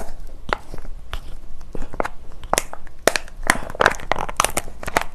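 Crinkling and crackling of a plastic sauce pouch in close-up as it is worked open by hand and bitten at the corner. The pouch is hard to open.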